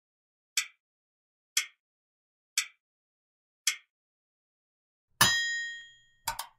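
Quiz countdown timer sound effect: four short ticks about a second apart, then a bell ding that rings and fades, marking the end of the answer time. Two quick clicks follow near the end.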